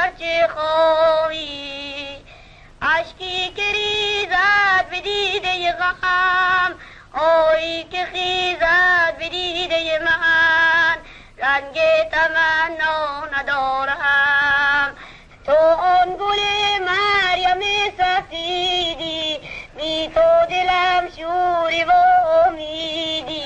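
A solo voice singing a slow, melismatic song with heavy vibrato, in long phrases separated by short breaths about every four seconds.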